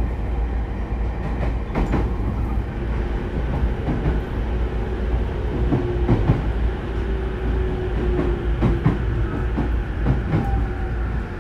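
Refurbished E231-0 series electric train running, heard from inside its motor car: a loud, steady rumble of wheels and running gear with irregular rail-joint clacks. A motor whine holds steady through the middle and slides down in pitch near the end.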